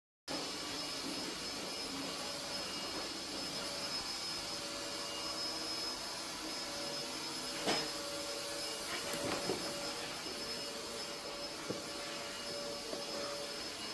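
An electric motor running steadily with a thin whine, like a household appliance. A few brief crinkles of a woven plastic shopping bag sound as cats move about inside it, the loudest about eight seconds in.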